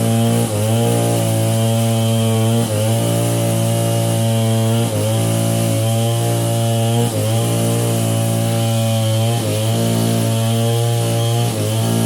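Chainsaw engine running steadily. About every two seconds it dips briefly and wavers in pitch before settling back.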